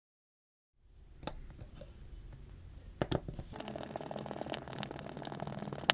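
Small handling noises of a pry tool and fingers working on a Samsung Galaxy S23's internal parts, with sharp clicks about a second in, a pair just after three seconds and one more at the end.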